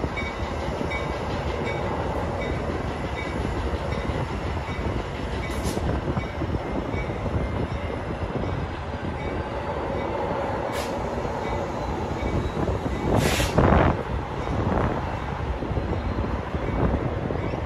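Metra bilevel gallery coaches rolling slowly past with a steady rumble of wheels on rail. A few sharp clicks sound over the track, the loudest about three-quarters of the way through, along with a faint high wheel squeal.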